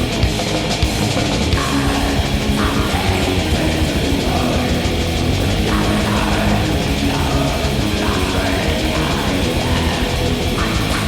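Black metal recording: distorted electric guitars and drum kit playing at a steady, dense level.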